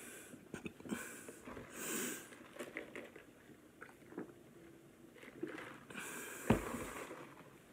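A man drinking from a paper soft-drink cup: soft sips, swallows and breaths through the nose, with small mouth clicks. A short thump comes about six and a half seconds in as the cup is moved away.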